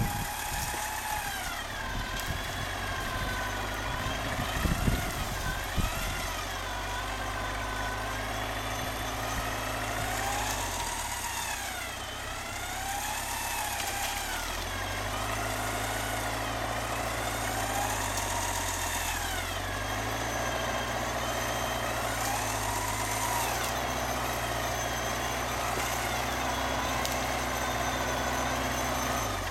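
Hyundai Galloper SUV's engine running at low revs as it crawls through deep snow, its note stepping up and down with the throttle, with a higher whine rising and falling through it. Sharp knocks and crunches in the first few seconds.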